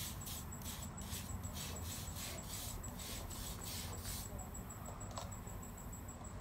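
Toothbrush scrubbing soapy skateboard griptape in quick back-and-forth strokes, a rhythmic scratchy rasp of about three strokes a second that stops about four seconds in.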